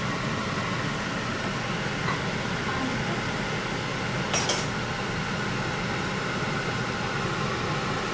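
Steady fan-like noise in a kitchen, with a single sharp metal clink of cookware or utensils about halfway through.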